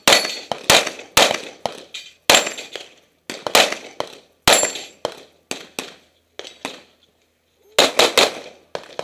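Handgun fired in a rapid string of single sharp cracks, about two shots a second. There is a short pause about seven seconds in, then a faster burst of four or five shots near the end.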